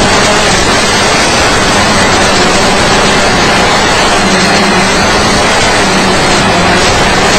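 Loud, steady hiss of static from an analog FPV video receiver's audio output, with a faint low hum under it.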